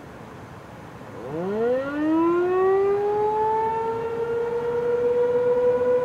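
Outdoor warning siren, the nearest an ASC T-128 about half a mile away, winding up about a second in during a siren test. Its pitch rises quickly, then levels off into a loud, steady tone.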